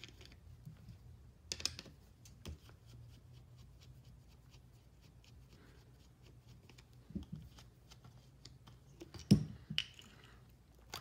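Small screws being backed out of the reservoir cap of a 1978 Yamaha XS1100 rear brake master cylinder with a small screwdriver, giving quiet, quick metal ticks and clicks. A louder knock comes near the end.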